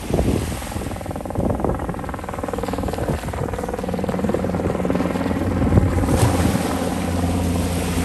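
Small aircraft flying overhead: a steady engine drone with a rapid pulsing buzz, growing louder toward the end. Surf washes ashore and wind buffets the microphone underneath.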